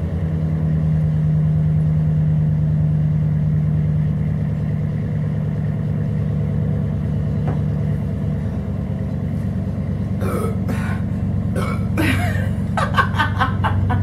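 A steady low hum throughout, with a woman's short throaty vocal sounds, burping and then laughing, in the last few seconds.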